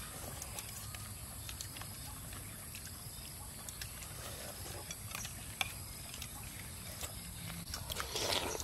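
Metal spoons clicking now and then against plates and bowls while people eat, over a steady low rumble, with a louder rustle of eating sounds near the end.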